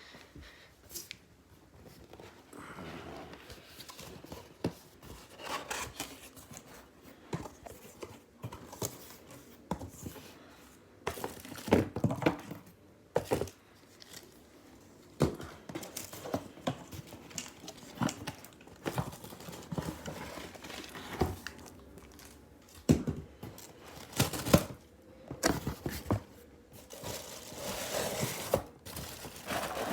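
Box and packing material being torn open and handled: tearing, crinkling and rustling, broken by scattered sharp knocks and clicks.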